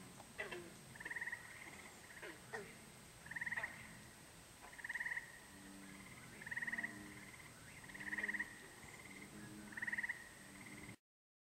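Frogs calling: a short pulsed trill repeated about every second and a half, six times, with fainter calls and low croaks between. It cuts off suddenly near the end.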